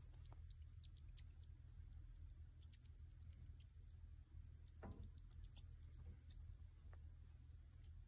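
Faint, tiny high-pitched squeaks from a hamster, a quick run of them starting about two and a half seconds in, with one soft knock near the middle.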